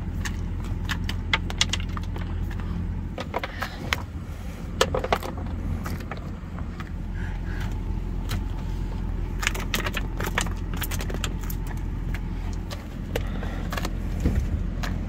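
Ostrich pecking at feed held at a truck's open window: irregular clusters of sharp taps and clicks from its beak, over the steady low hum of the truck's engine.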